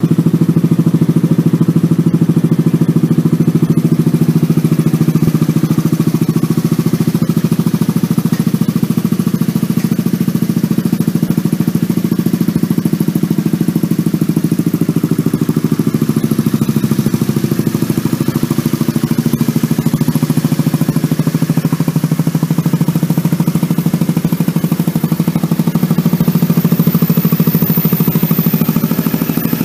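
2007 Yamaha Maxam 250 cc single-cylinder scooter engine idling steadily through an aftermarket muffler.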